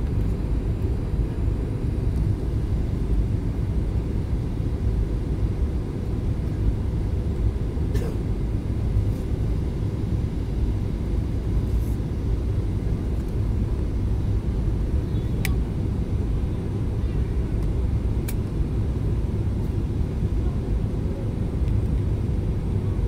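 Steady low rumble of a jet airliner heard from inside the passenger cabin on final approach: engine and airflow noise. A few faint clicks come through about a third of the way in and again near two thirds.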